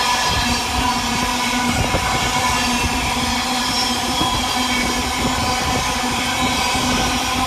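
An intermodal container freight train rolling through the station: a steady, loud rumble and clatter of wagon wheels on the rails, with a constant whine over it.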